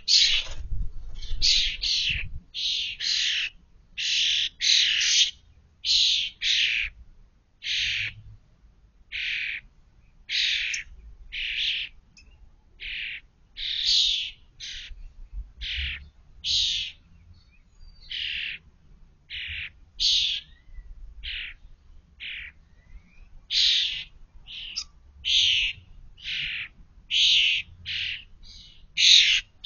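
European starlings giving short, harsh calls over and over, one to two a second with brief pauses: brown fledglings begging for food around an adult carrying an insect.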